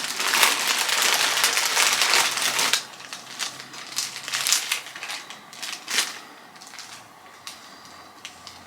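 Packaging being crumpled and handled: a dense stretch of crinkling for about the first three seconds, then scattered crinkles and rustles that die down about six seconds in.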